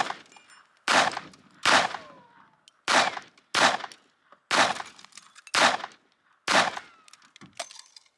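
A Phoenix HP22A .22 LR semi-auto pistol firing a rapid string of about eight shots, under a second apart. Each shot is a sharp crack with a short echo.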